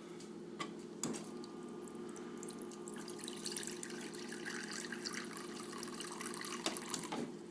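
Water running in a steady stream from a refrigerator's door water dispenser into a container. It starts about a second in and stops near the end, over a steady low hum.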